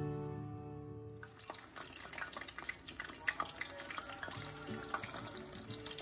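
Hot oil sizzling and crackling in a frying pan around battered vegetable slices, a steady hiss dotted with small pops that starts about a second in, after acoustic guitar music fades out.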